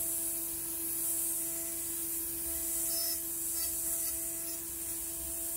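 High-speed CNC spindle running a small carbide end mill through aluminium, giving a steady tone, with the high hiss of mist coolant spraying at the cut.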